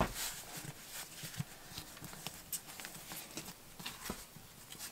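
Faint scattered taps and soft pats of hands shaping and dividing a mound of bread dough on a kitchen counter.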